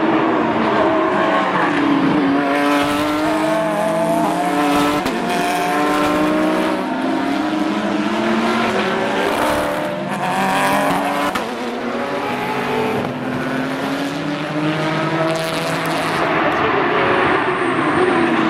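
Several race cars passing in a pack, among them a Porsche 911 GT3 Cup car and open-cockpit prototype racers. Their engines overlap, revving up and down in pitch as they brake and accelerate through a corner and shift gears.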